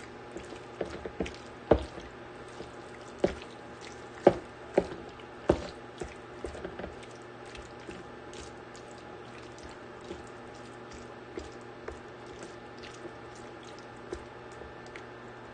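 Marinated chicken pieces sizzling as they sear in a stainless steel pan, stirred with a spatula that knocks and scrapes against the pan. The knocks come thick and sharp in the first six seconds, then turn fewer and lighter.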